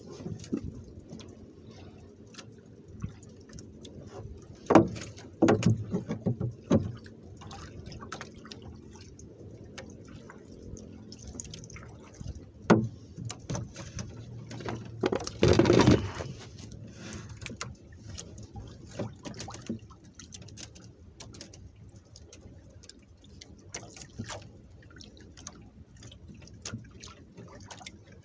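Water lapping and dripping with a low steady rush, under scattered knocks and clicks from handling a fishing hand line and bait. A louder rush of noise lasting about a second comes a little past the middle.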